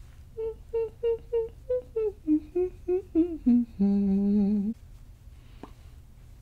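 A woman humming a short tune: about a dozen quick notes that step down in pitch, ending on one longer low note that wavers slightly.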